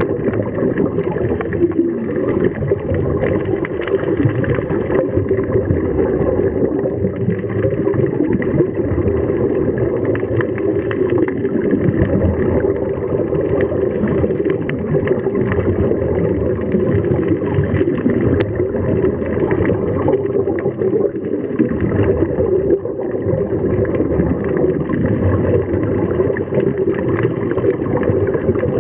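Steady, muffled underwater rumble and gurgling of seawater, heard with the microphone submerged.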